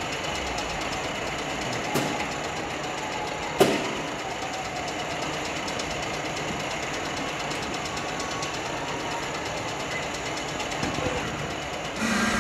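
Radial arm drill's arm-elevating motor and gearing humming steadily as the arm is lowered down the column, with two sharp clunks about two and three and a half seconds in.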